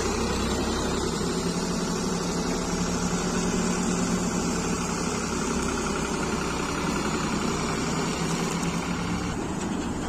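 Panesar combine harvester running steadily while harvesting wheat: an even drone of its engine and threshing machinery.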